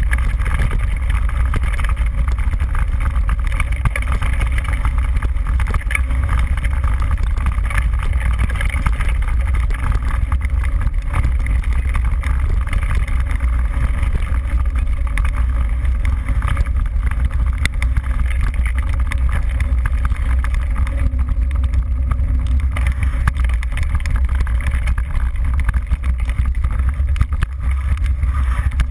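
Steady wind buffeting and rumble on a mountain-bike-mounted GoPro microphone as the bike rides over a dirt trail, with light rattling and ticking from the bike over bumps.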